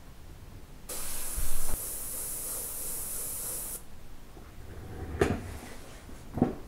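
Airbrush spraying paint in one hissing burst of about three seconds, then two short knocks near the end.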